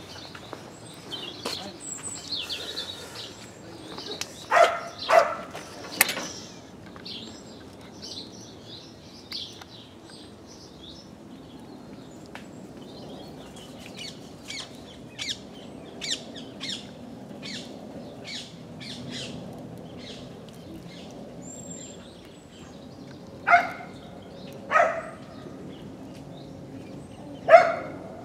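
Small birds chirping and singing, including a run of quick repeated high notes in the middle. A dog barks twice about four to five seconds in and three more times near the end.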